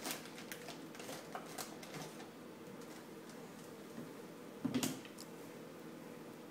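Light clicks and taps of small bottles and cans being handled and set down on a wooden floor by a toddler, with one louder knock just under five seconds in.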